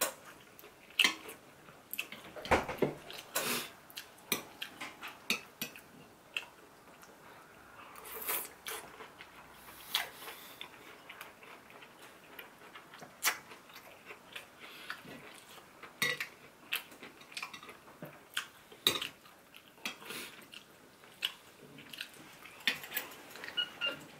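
Metal chopsticks clicking and scraping against a ceramic plate at irregular intervals, mixed with close-up chewing of crunchy fried sweet-and-sour pork.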